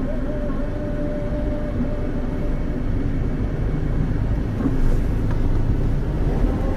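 Road traffic noise from slow-moving cars and motorcycles: a steady low engine rumble, with a faint steady tone in the first couple of seconds.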